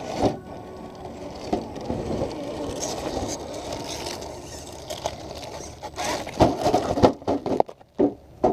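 RC rock crawler's tires and chassis scraping and grinding over rock. Several loud knocks and clatters come about six to eight seconds in.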